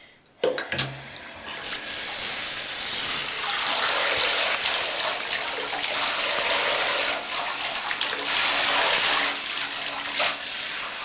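Water running in a bathtub over a wet dog, starting with a couple of knocks about half a second in and then running steadily from about a second and a half on.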